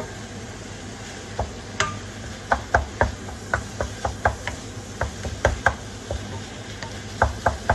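Wooden spatula knocking and scraping against a nonstick wok while raw minced meat is broken up and stirred: sharp irregular taps, about three a second, starting about a second and a half in, over a steady low hum.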